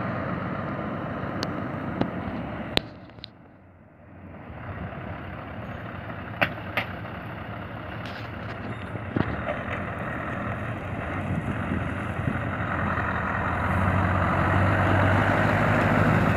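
Scania R620's V8 diesel engine running as the truck pulls out and drives closer, growing steadily louder and deeper over the last few seconds, with a few sharp clicks in the first half.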